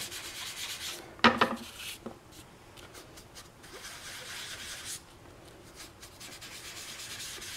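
Small foam sponge rubbed in short strokes over paper cardstock: a soft, scratchy rustle that comes and goes in several stretches. About a second in there is one brief, louder pitched sound.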